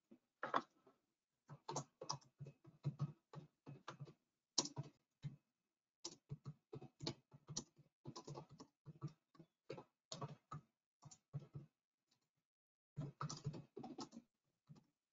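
Typing on a computer keyboard: irregular runs of keystrokes, broken by a pause of about a second roughly three quarters of the way through.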